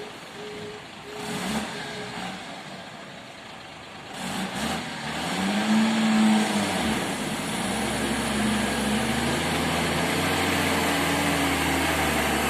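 Fully loaded vehicle's engine revving up and then pulling steadily, its pitch climbing slowly as it gathers speed. Short repeated beeps sound during the first two seconds.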